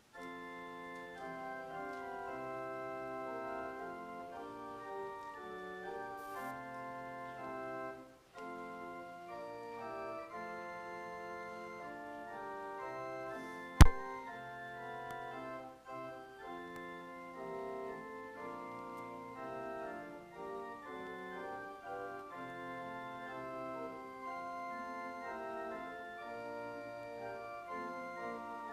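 Church organ playing a hymn in held chords, with a short break about eight seconds in. A single sharp click about halfway through is the loudest sound.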